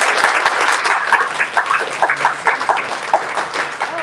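Audience applauding, with scattered cheers and whoops over the clapping.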